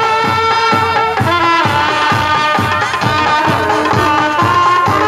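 Music: a wavering melody over a steady drum beat of about two beats a second.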